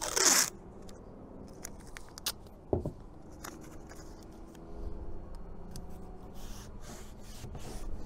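Masking tape being pulled off the roll and torn into strips, with a loud rip at the very start, then softer rasps and small clicks as strips go onto a plastic console panel.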